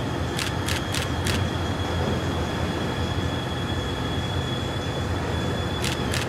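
Docked car ferry's engines running with a steady low rumble and a faint, steady high whine. A quick run of sharp metallic clicks comes near the start and another near the end.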